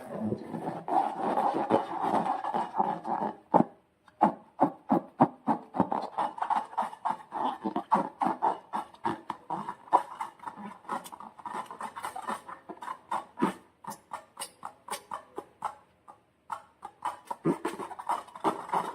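Sticky slime being squeezed and worked by hand, making a dense run of wet clicks and pops, several a second, with a short pause about four seconds in.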